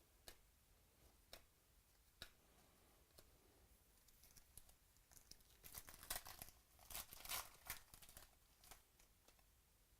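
Faint crinkling and tearing of packaging as trading cards are unwrapped and handled, after a few light clicks.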